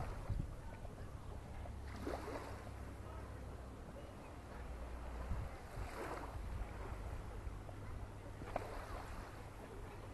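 Wind buffeting the microphone with a steady low rumble, and faint swishes of small waves lapping on a sandy shore about three times, a few seconds apart.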